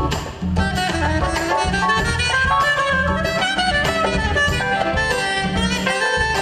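Live jazz fusion band: a soprano saxophone plays a fast, busy run of notes over a groove of congas and drums.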